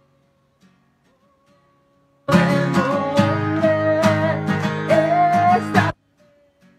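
Acoustic guitar strummed with a man singing a worship song over it. The sound is nearly gone for about the first two seconds. It then cuts in suddenly as full strummed chords and voice, and cuts off just as suddenly about a second before the end.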